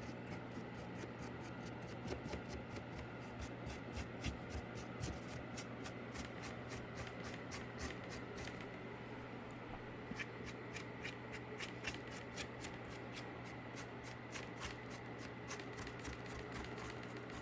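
Paintbrush dry-brushing paint onto a cardboard case: faint, quick scratchy strokes, a few a second, over a steady low hum.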